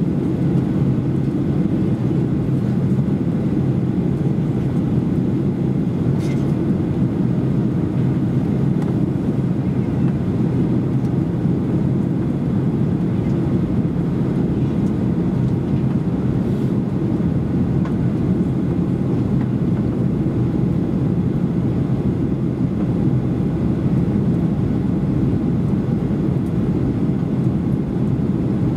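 Steady cabin noise inside a Boeing 737-800 in flight: a constant low drone of its CFM56 turbofan engines and the airflow over the fuselage.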